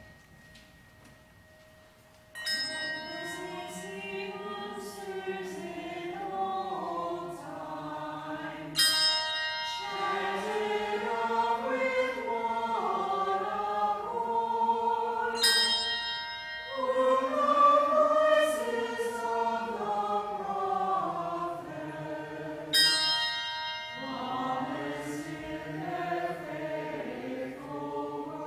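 Church choir singing an anthem in slow, sustained phrases. The singing starts about two seconds in, and new phrases begin about every six to seven seconds.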